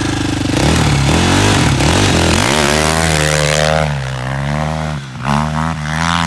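KTM 450 quad's single-cylinder four-stroke engine idling, then revving up as it pulls away, the revs rising and falling repeatedly, with a brief drop in revs about five seconds in before it picks up again.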